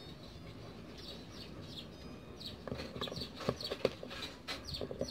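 Light clicks and knocks from a plastic printer pick-up roller assembly being handled, mixed with short, falling bird chirps that come thicker in the second half.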